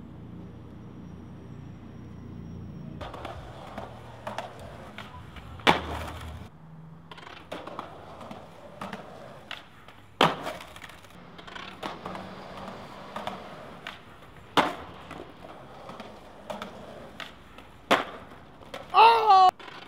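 Skateboard on concrete: wheels rolling, with loud sharp pops and landing slaps about every four seconds and smaller clicks between. A brief wavering squeal comes near the end.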